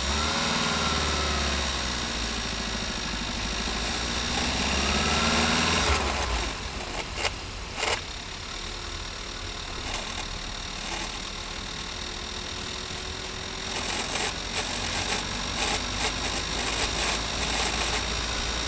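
Audi A3 engine and gearbox running, heard from underneath beside the gearbox casing. For the first six seconds a whine rises and falls; then the sound drops to a steadier, quieter running with two sharp knocks, and light clicking near the end. The owner calls this an unusual gearbox noise but has no diagnosis.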